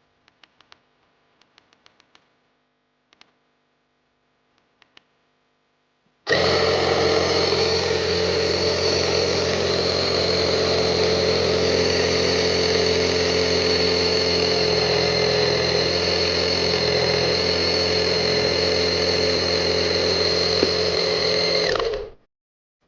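A few faint clicks, then a battery-powered portable tyre-inflator air compressor starts about six seconds in and runs with a steady motor-and-pump buzz for about sixteen seconds before cutting off.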